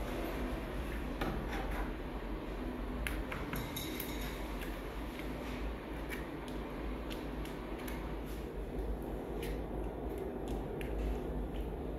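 Faint scraping and a few light clicks of a hand tool working self-adhesive bitumen waterproofing membrane, over a steady low hum.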